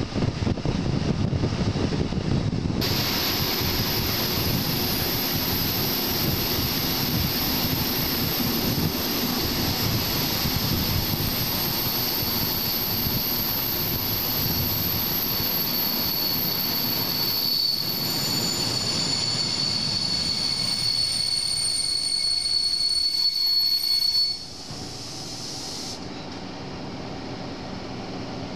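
Passenger train heard from an open window: wheels rumbling on the track, with a high squeal of several steady pitches from the wheels starting about three seconds in. The squeal lasts about twenty seconds while the train runs into a station and stops shortly before the end, leaving a quieter rumble.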